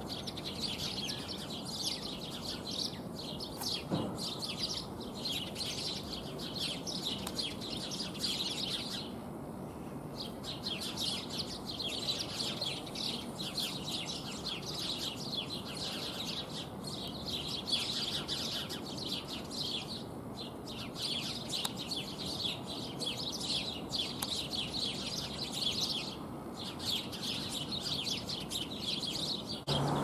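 Sparrows chirping continuously, many rapid overlapping chirps from several birds, with a few brief lulls.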